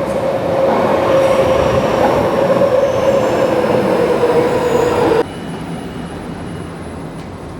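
Metro train running, a steady whine held over loud rumbling noise; it cuts off suddenly about five seconds in, leaving a quieter steady rumble.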